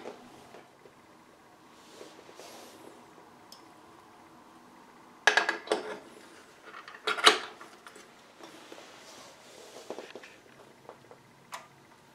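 A glass 300B power tube being handled and pushed into its socket on a tube amplifier: sharp clicks and clinks in two clusters, about five and seven seconds in. A single lighter click near the end.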